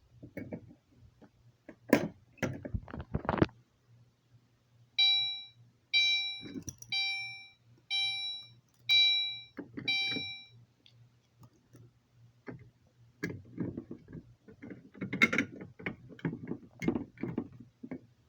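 Fire alarm horn on its chime setting, dinging six times about once a second, each ding fading out: the brief signal the panel gives in walk test mode. Clicks and handling noises from the devices come before and after the chimes.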